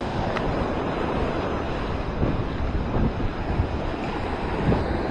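Small waves washing in and fizzing over the shallows at the water's edge, a steady rush, with wind buffeting the microphone.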